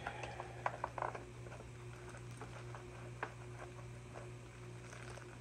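Light clicks and small plastic knocks as a chainsaw's sprocket side cover is fitted over the bar and chain, most of them in the first second and one more about three seconds in. A steady electrical hum runs underneath.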